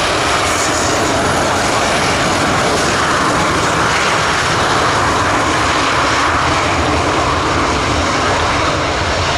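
Jet airliner's engines running at high power, a loud, steady rush of engine noise.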